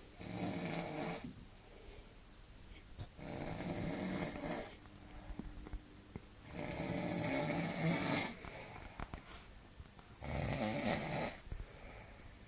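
A man snoring heavily: four long snores about three seconds apart, with quiet breathing gaps between.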